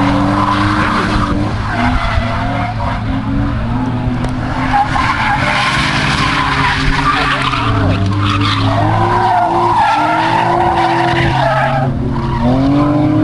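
Cars drifting, with their engines revving up and down over and over and their tyres skidding and squealing as they slide sideways.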